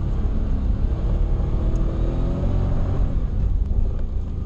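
Toyota 1UZ V8 engine in a Nissan 240SX, heard from inside the cabin, running with a heavy low rumble. Its revs climb and drop again around the middle.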